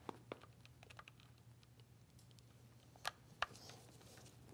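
Faint small clicks and taps of a screwdriver and pump parts being handled on a benchtop, with two sharper clicks close together about three seconds in.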